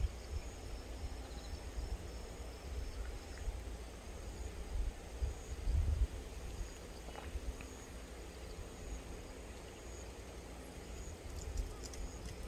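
Insects trilling steadily in high, broken tones, over a low rumble of wind or handling on the microphone that swells briefly about halfway through.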